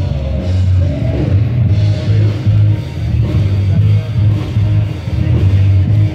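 Live rock band playing, with guitar over a pulsing bass line that changes note about twice a second.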